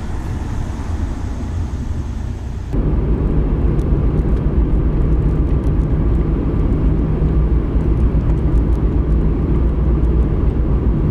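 Car cabin noise while driving: a steady low rumble of engine and tyres on the road, which gets louder and deeper about three seconds in and then holds steady.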